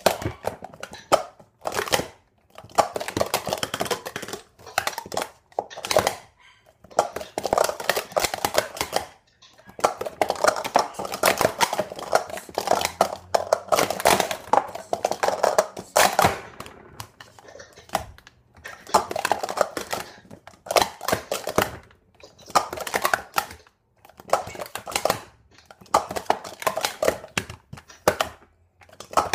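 Plastic sport-stacking cups clattering as they are rapidly stacked up and brought back down. The clicks come in fast runs of one to three seconds with brief pauses between them, the rhythm of repeated practice attempts.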